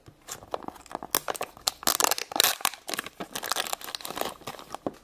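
Plastic packaging of a Num Noms cup surprise crinkling and tearing as it is peeled open by hand: irregular crackles, thickest in the middle.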